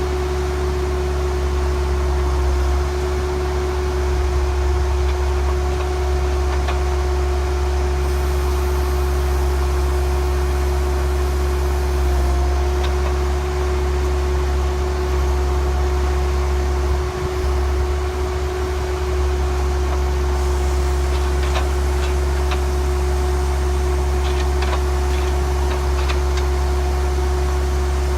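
Heavy construction machine's diesel engine running steadily at a constant speed, with a deep hum and a steady high whine over it.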